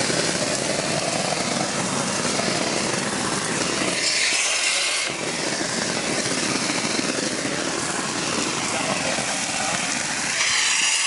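Loud, steady machinery noise, with a hiss that rises twice as the lower rumble briefly drops away.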